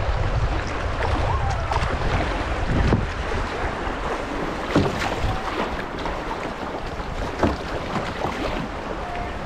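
Water rushing and splashing around a kayak paddling through river rapids, with wind buffeting the microphone as a low rumble. A few sharp knocks stand out, about three, five and seven and a half seconds in.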